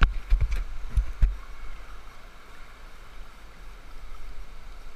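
Steady rushing of a whitewater river rapid, with a few low knocks and thumps in the first second and a half.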